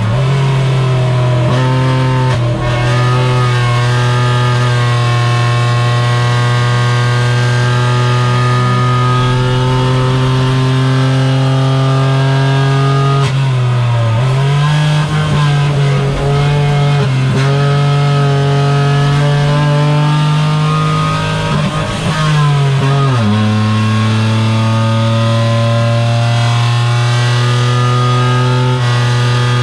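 Renault Twingo Cup race car's engine heard from inside its stripped cockpit, running hard under load at a steady, slowly rising pitch. The pitch dips briefly several times, about 2, 13, 17 and 22 seconds in.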